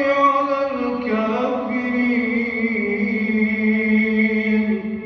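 A man's voice reciting the Quran aloud in a slow melodic chant (tajweed), drawing out long ornamented notes, with one long held note from about two seconds in.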